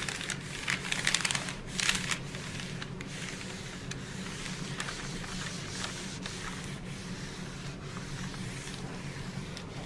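Mini iron sliding back and forth over parchment paper, the paper rustling and crinkling under it. The rustling is crispest in the first two seconds, then settles into faint steady rubbing over a low hum.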